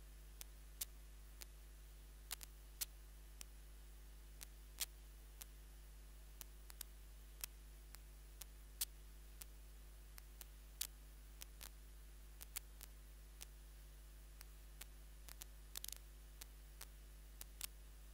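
Near silence: a faint steady low hum with sharp clicks at irregular intervals, about one or two a second, and a brief crackle about two seconds before the end.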